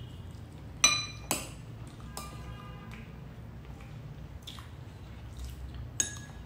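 Metal spoon clinking against ceramic dishes while eating: two sharp clinks about a second in, half a second apart, and one more near the end, each ringing briefly, over a low steady hum.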